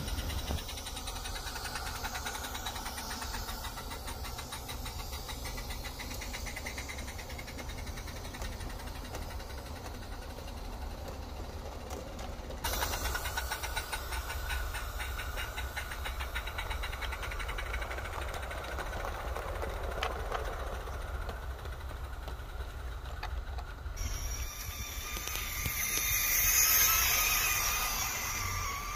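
16mm-scale garden railway model trains running on the track: a steady rattle of small wheels clicking over the rails, with hiss. The sound changes abruptly twice and is loudest near the end.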